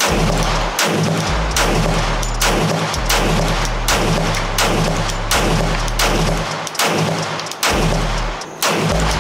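Background music: deep, steady bass notes that change about every second under a dense, hard-hitting beat.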